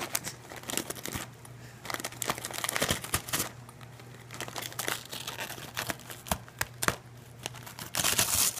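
A German Shepherd tearing into a gift wrapped in paper with paw and nose: wrapping paper crinkling and ripping in irregular bursts, the longest and loudest near the end.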